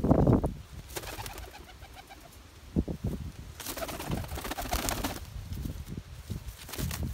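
Domestic pigeons cooing at close range, with two bursts of hissy rustling about a second in and again around four seconds in.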